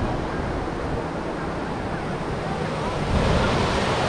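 Sea surf washing onto a sandy beach: a steady rush of breaking waves that grows louder about three seconds in.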